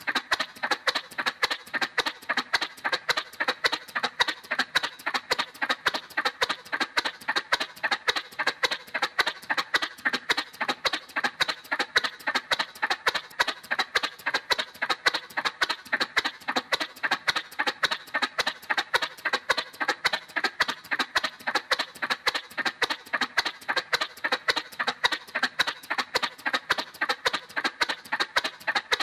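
Cartoon motorcycle sound effect: a steady putt-putt of short, even pops, about four to five a second, with a thin high tone over it.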